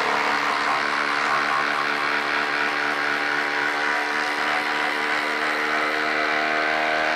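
Milwaukee cordless impact driver hammering steadily under load as it drives a 5/16-by-8-inch galvanized lag screw into a wooden log.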